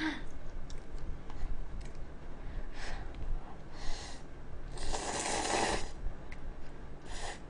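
Instant cup noodles being slurped: a few short slurps, then a longer, louder slurp about five seconds in, and a short sip of broth from the cup near the end.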